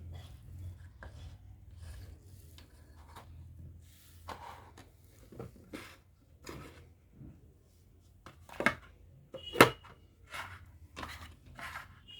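Small hard items clicking and knocking as they are handled, with two louder sharp knocks about two-thirds of the way in, the second followed by a brief high ring.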